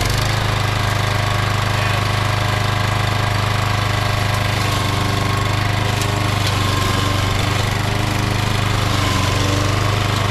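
Single-cylinder petrol engine of a generic 5.5 hp walk-behind lawn mower running steadily at part throttle, having just caught on its first cold start. The engine note is loud and even, with no revving or misfiring.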